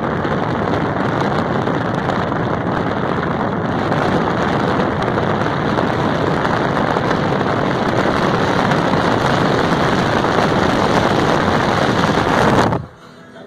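Steady rush of wind and road noise from a moving car, with wind buffeting the microphone. It cuts off suddenly near the end.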